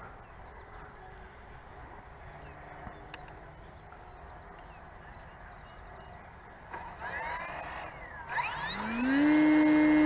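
Faint outdoor background for about seven seconds, then the electric motor of a radio-controlled F9F Panther model jet: a short throttle burst, a brief cut, then a whine rising in pitch to a steady high note as it is throttled up for a hand launch.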